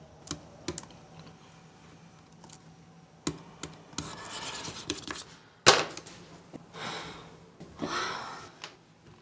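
Scattered clicks of laptop keys and a mouse, with several short rustling, rubbing noises and one sharp knock a little over halfway through.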